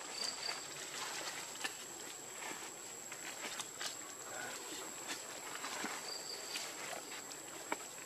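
Outdoor forest ambience: a steady high-pitched whine runs throughout, with two short high chirps near the start and again about six seconds in. Faint scattered rustles and ticks in dry leaf litter come as macaques move about.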